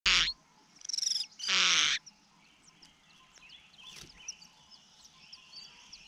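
Nestlings in a ground nest, a common cuckoo chick among them, begging with three loud harsh calls in the first two seconds as a parent bird arrives at the nest. Faint chirps and whistles of other birds follow.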